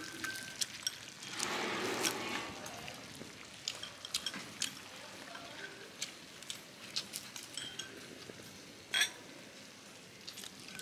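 Tableware at a meal: scattered light clinks and taps of chopsticks, spoons and bowls, with a brief rustling noise about a second and a half in and one sharper click near the end.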